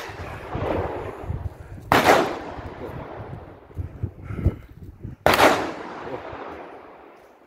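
Gunshots at an outdoor shooting range: a faint shot at the start, then two loud shots about three seconds apart. Each is followed by a long echo that dies away.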